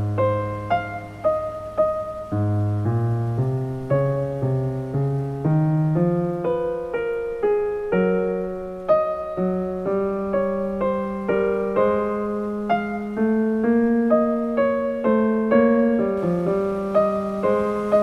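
Background piano music: a calm melody of single struck notes, about two a second, over held low bass notes.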